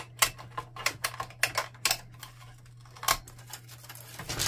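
Irregular plastic clicks and taps from a Canon PIXMA TS5120 printer's front control panel and casing parts as they are handled and worked loose, about a dozen in quick, uneven succession, over a steady low hum.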